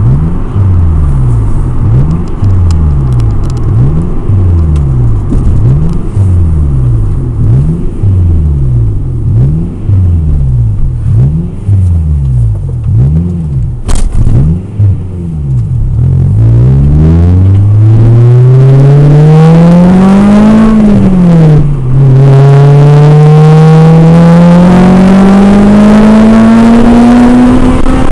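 Modified Honda VTEC four-cylinder with aftermarket headers and exhaust, its pitch dipping and rising about once a second at first, then pulling hard in acceleration: the note climbs, drops at a gear change a few seconds later, and climbs again through the VTEC crossover to another shift near the end. The VTEC change-over comes in weakly, with no sharp jump in sound.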